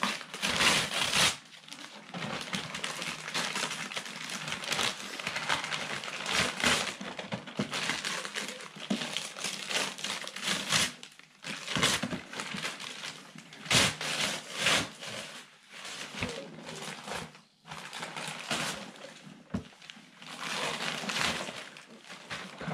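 Wrapping paper being torn and crinkled as a present is unwrapped, in repeated rips and rustles with short pauses between them, and a few sharp knocks as the boxed toy is handled.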